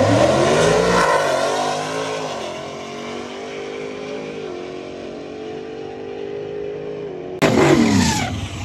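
Big-rim drag car accelerating off the line and running down the drag strip, its engine note climbing and then fading steadily as it pulls away. About seven seconds in, an abrupt cut to another big-rim car revving hard during a burnout, its engine pitch sweeping up and down.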